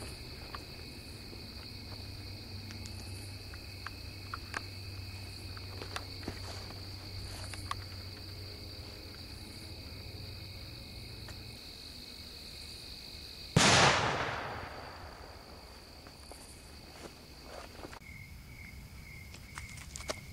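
A homemade spherical salute detonating: one very loud bang about 13 to 14 seconds in, with an echoing tail that fades over about two seconds. A steady high-pitched trill runs in the background, and near the end a regular pulsed chirping starts.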